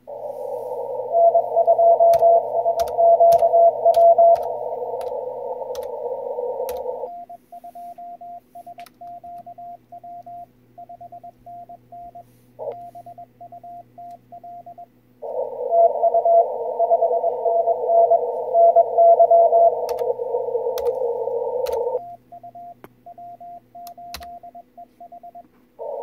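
Morse code (CW) from an Icom IC-7610 transceiver's speaker during a contest exchange. Twice, a loud stretch of receiver hiss carries another station's Morse signal. Each is followed by a quieter, clean on-off sidetone of the operator's own Morse being sent. Keyboard clicks come over the received stretches as the contact is typed into the logging program.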